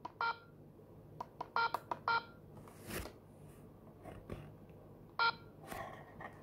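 ZKTeco LX50 fingerprint attendance terminal beeping: several short electronic beeps in the first two seconds as its menu keys are pressed, with faint key clicks. One more beep comes about five seconds in, as a finger on the sensor is read during fingerprint enrollment.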